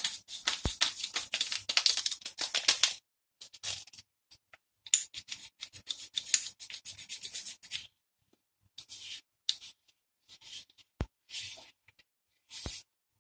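Engine parts being rubbed by hand: bursts of quick, hissy rubbing strokes with pauses between them, and two sharp knocks near the end.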